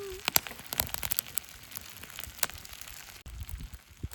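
Udon frying in a pan over a wood campfire: a soft sizzle with scattered sharp crackles from the fire and pan.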